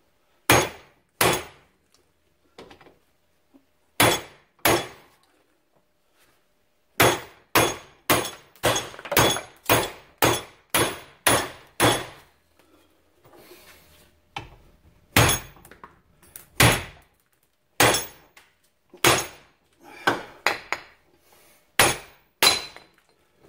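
Hammer blows on metal, about two dozen sharp ringing strikes in bursts, with a steady run of about two a second in the middle, driving an old wheel bearing out of a Polaris Sportsman 500 ATV's hub until it comes free.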